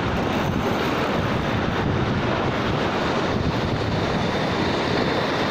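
Sea surf churning and washing against the rocks below a cliff, with wind buffeting the phone's microphone: a steady rushing noise.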